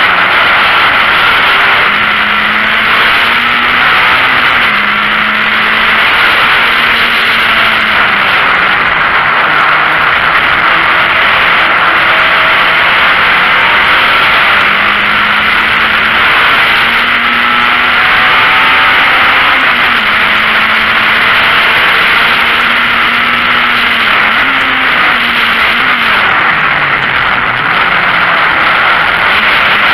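VW Golf Mk1 race car engine heard from inside the cabin at racing speed, its note climbing and falling back several times as it changes gear, under loud steady wind and road noise.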